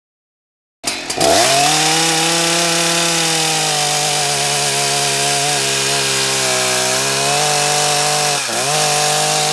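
Husqvarna 181 SE two-stroke chainsaw, running on a freshly adjusted carburettor, held at high revs under load as it cuts into wood. It comes in abruptly about a second in, rises quickly to a steady high note, and dips briefly and recovers near the end.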